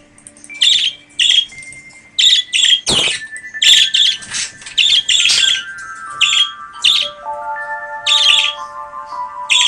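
Budgerigar giving a rapid series of short, sharp chirps that start about half a second in, over held musical notes that step down in pitch.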